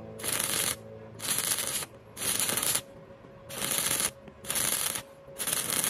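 Stick-welding arc crackling in about six short bursts, each around half a second long, with brief quieter gaps as the electrode is lifted off the puddle and the arc re-struck.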